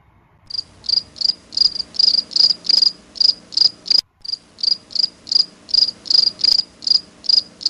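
Cricket chirping: short, high-pitched chirps repeating evenly about three times a second. The chirping breaks off briefly about four seconds in, resumes, and cuts off abruptly near the end.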